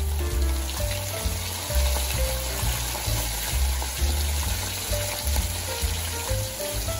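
Flour-dredged whole tilapia frying in hot oil in a pan, a steady sizzle, with background music and a prominent bass line over it.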